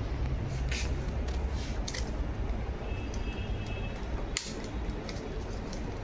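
A few short, sharp plastic clicks and scrapes over a steady low background hum, as a tool is worked into the seam of an HP EliteBook laptop's bottom cover to pry its clips loose.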